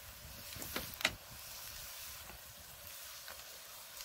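Meat and tomato sauce sizzling steadily in a very hot cast iron Dutch oven over open-fire embers, with a few faint crackles.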